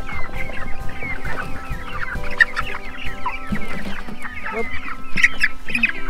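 A flock of young chickens calling, many short calls overlapping without a break.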